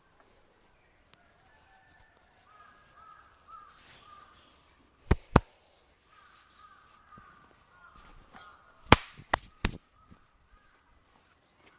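Crows cawing in the background. Two sharp smacks come about five seconds in and three more around nine seconds in, likely the barber's hands striking during the massage.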